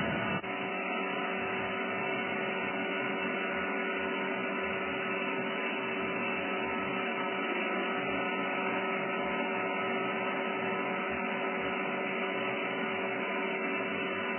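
CNC internal grinding machine running with a steady mechanical hum and several constant tones, after a brief dip about half a second in.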